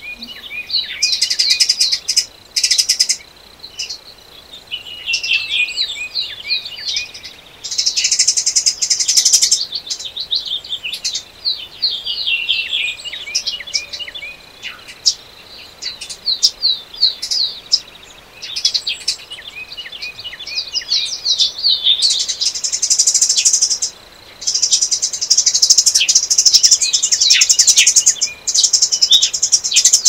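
Several songbirds singing together: many quick, high chirping notes overlapping, with stretches of fast, buzzy trills that come and go.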